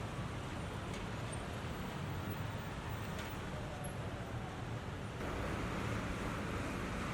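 Steady road traffic noise, an even hiss with no distinct events, growing louder and brighter suddenly about five seconds in.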